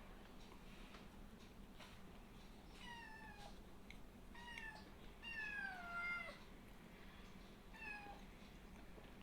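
A kitten meowing four times, high calls that each fall in pitch, the third the longest and loudest.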